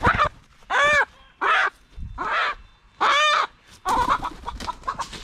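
A hen squawking loudly in distress while caught in a net, five drawn-out squawks about a second apart. Near the end comes a quick flurry of wing flaps.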